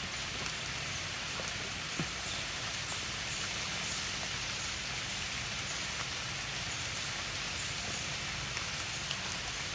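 Steady rain falling on rocks and leaves, with a few single drops ticking louder now and then.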